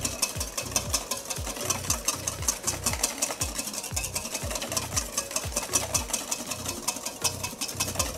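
Wire whisk beating egg whites in a stainless steel bowl, the wires clicking against the metal in a rapid, even rhythm, whipping the whites toward soft peaks.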